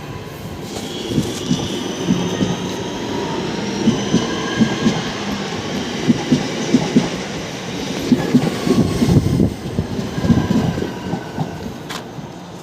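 Class 323 electric multiple unit running slowly over points, its wheels clacking irregularly with a thin high-pitched squeal drifting above, a sound taken at first for braking.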